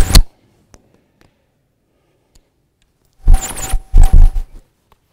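Clip-on lapel microphone being handled and threaded through shirt and jacket: loud rubbing and rustling of cloth over the mic, in two bursts, a short one at the start and a longer one about three seconds in.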